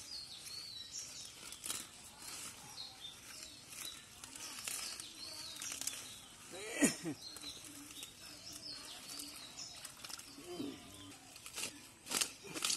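Water hyacinth leaves and stems rustling and tearing as they are pulled apart by hand in wet mud, in a string of short crackles, with birds chirping faintly. About seven seconds in comes a louder short sound that drops in pitch.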